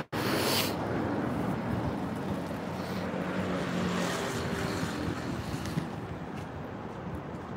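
City street ambience: a steady hum of road traffic on the street alongside, with the sound cutting out for an instant right at the start.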